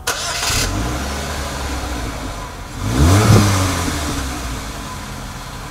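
2012 Chevrolet Malibu's 2.4-litre four-cylinder engine firing up with a brief flare and settling to idle, then one quick rev about three seconds in that drops back and fades out.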